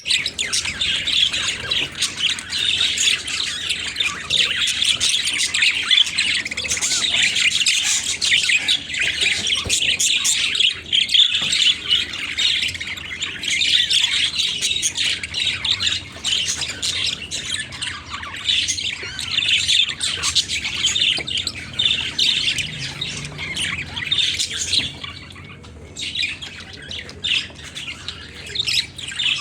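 Budgerigars chattering and squawking continuously in a dense warble, easing off for a couple of seconds near the end before picking up again.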